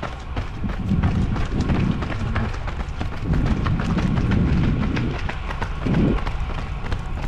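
Running footsteps of several runners striking a wet paved path in a quick, steady rhythm, over a low rumble.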